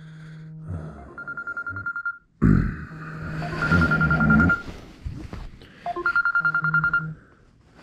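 A trilling electronic ring in three bursts about a second long, about two and a half seconds apart, with a loud burst of noise between the first two.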